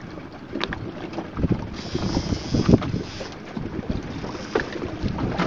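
Wind buffeting the microphone on a small open fishing boat at sea, with water sloshing against the hull and a few short knocks.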